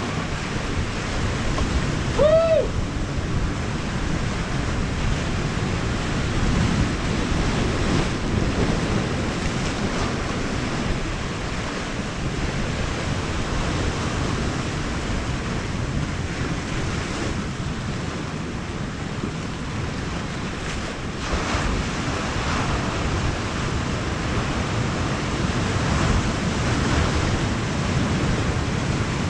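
Sea surf washing steadily, with wind buffeting the microphone. About two seconds in, a single brief call that rises and falls in pitch cuts through.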